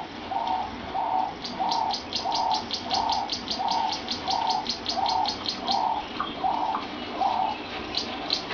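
Birds calling in a wildlife documentary soundtrack: a low cooing note repeats evenly about every two-thirds of a second and stops near the end. Over it, a fast high chirping of about seven notes a second runs for several seconds in the middle.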